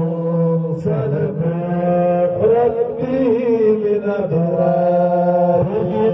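A man's voice chanting a melodic devotional song, with long held notes that bend slowly in pitch and brief breaths between phrases.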